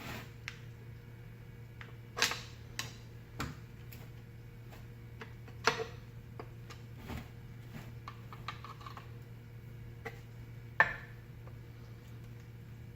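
Steel screwdrivers clicking, tapping and scraping against a fan motor's metal housing as it is pried apart: irregular sharp clicks and knocks, loudest about two seconds in and near eleven seconds, over a steady low hum.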